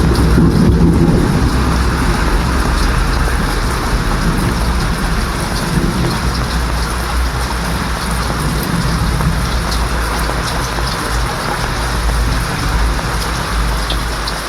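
Steady heavy rain with a low rumble of thunder under it, the thunder strongest in the first second or two.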